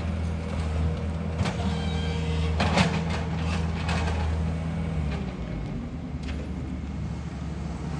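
Bucket truck's engine running steadily while its boom moves, with a few sharp knocks about one and a half and three seconds in; the engine note drops about five seconds in.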